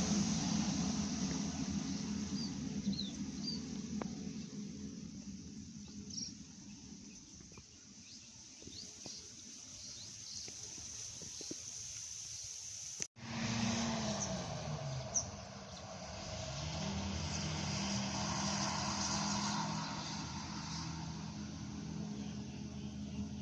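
Bus engine going past and fading away, with a few birds chirping. After a cut, a bus engine's pitch drops, then climbs again and holds steady.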